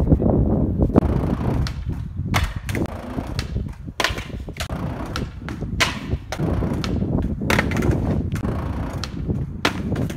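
Skateboard deck and wheels hitting concrete in a series of sharp clacks, as on a missed heelflip where the board flips away and clatters off, over a steady low rumble.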